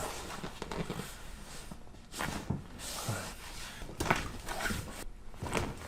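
Handling noise during a chiropractic adjustment: rustling with a few short knocks and clicks, about two seconds in, again around four seconds, and near the end.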